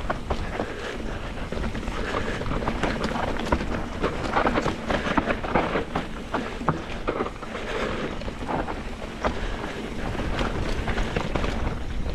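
Mountain bike descending a dirt trail: tyres rolling over dirt and rocks, with many small clicks and rattles from the bike over the bumps and wind buffeting the microphone.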